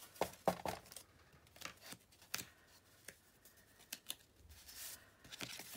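Card stock being handled and lined up by hand: scattered light taps and rustles of paper, the loudest about half a second in.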